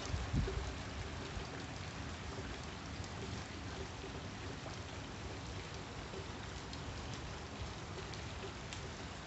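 Steady rain falling on wet lawn, puddles and pavement: an even hiss with scattered drop ticks. A few low thumps at the microphone in the first half second.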